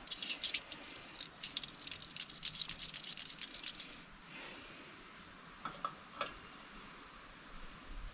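Light metallic rattling and clinking of small metal parts being handled: a quick, dense run of clinks for about the first four seconds, then a few single clicks a couple of seconds later.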